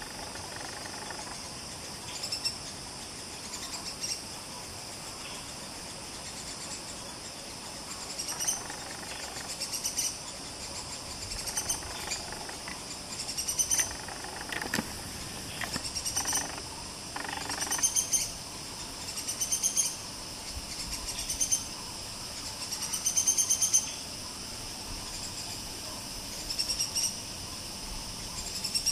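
Rainforest wildlife: a high, pulsing chirp phrase rising in pitch, repeated every couple of seconds over a steady background hum of insects, with a few soft knocks near the middle.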